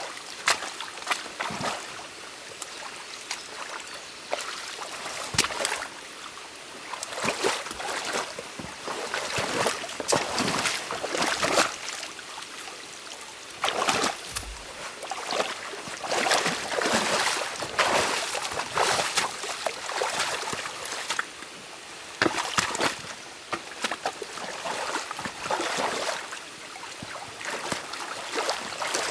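Stream water running with repeated irregular splashing, sloshing and knocks of sticks as a beaver dam is pulled apart by hand.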